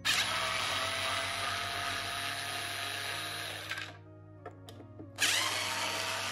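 Cordless electric screwdriver with a hex bit whirring as it backs screws out of the rear fender of a Ninebot Max electric scooter. It runs for nearly four seconds, pauses with a few light clicks, then starts again about five seconds in.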